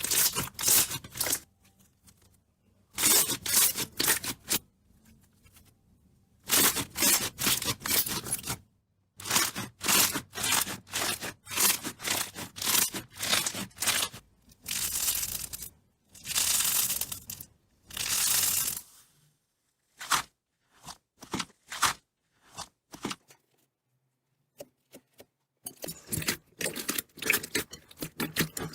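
Slime being squished and stretched by hand, crackling and popping in runs of dense clicks. The runs come in separate bursts of one to two seconds with silent gaps between them, and thin out into scattered single pops past the middle.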